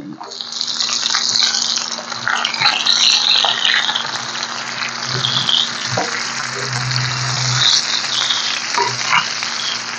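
Chopped onion sizzling loudly in hot desi ghee on a large steel tawa, the sizzle starting as the onion goes in. A few short scrapes of a steel spatula come through later as the onion is stirred.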